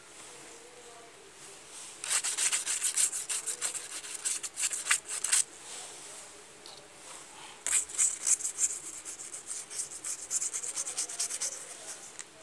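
Fast scratching and rubbing strokes of a thin tool across a paper leaf, in two bursts of several seconds each.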